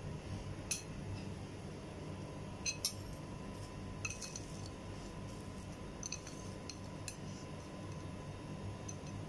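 Light clinks of kitchen utensils against dishes, scattered several times over a steady low hum.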